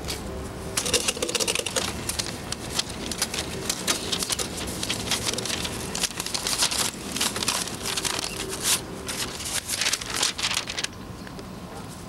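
Loose gravel crunching and rattling as a hand works through it, a dense, irregular run of small clicks and crackles that stops about a second before the end.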